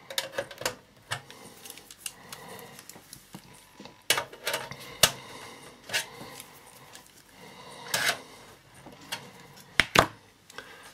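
Small pliers gripping and bending thin sheet-metal tabs on a satellite set-top box's metal casing: scattered metallic clicks and scrapes, with a few sharper clicks around the middle and near the end.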